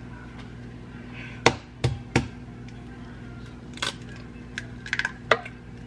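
A raw egg knocked three times against a hard edge, sharp cracks about a second and a half to two seconds in, then the shell pulled apart with a few small crackles and clicks.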